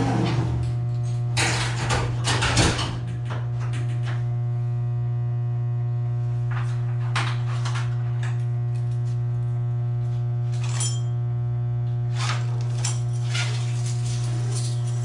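Steady electrical mains hum from energized switchgear. Over it, a heavy cable knocks and scrapes against the panel's metal as it is fed in, mostly in the first few seconds, with a few more knocks later.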